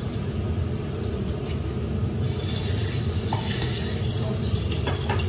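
Steady rushing kitchen noise with a low rumble, growing hissier about two seconds in, and a few light clinks of pots and utensils near the end.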